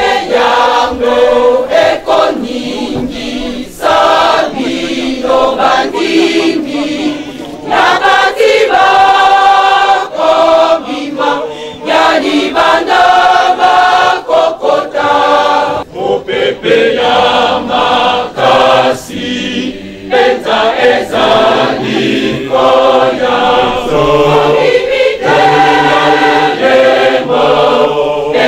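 Large church choir singing together in long sung phrases, with brief breaks between phrases.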